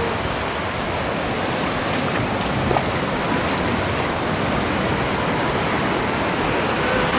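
Ocean surf washing steadily onto the beach.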